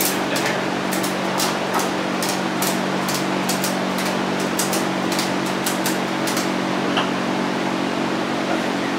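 A steady mechanical hum, like a shop fan running, with irregular sharp clicks and taps over it that stop about two-thirds of the way through.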